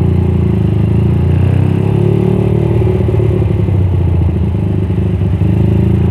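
Suzuki Satria FU motorcycle with a 200cc engine, running at low revs while creeping through slow traffic, its note rising and falling slightly with the throttle.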